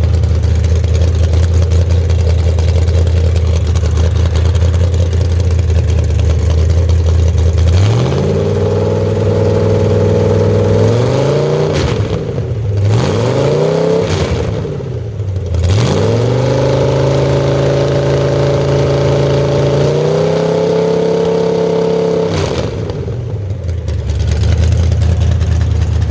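Freshly rebuilt Ford 351 Cleveland V8, with a hydraulic roller cam and a 650 Holley carburettor, on its first run. It idles steadily, then from about eight seconds in it is revved up and held several times, dropping back twice in between. Near the end it settles back to idle.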